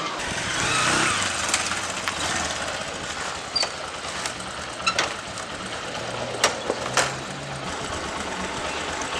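Small motorcycle engine running steadily, with several sharp clicks and knocks over it; the engine sound dies away about seven and a half seconds in.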